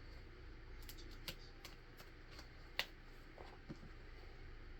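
A few light, sharp clicks and taps of hand-tool work on a championship belt's metal logo plate and its screw backs, spaced irregularly over a faint background.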